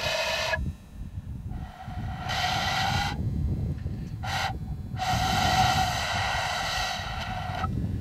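Vertical end-blown cane flute played in a few breathy held notes with short breaks between them, the longest note, near the end, lasting about two and a half seconds. Wind rumbles low on the microphone underneath.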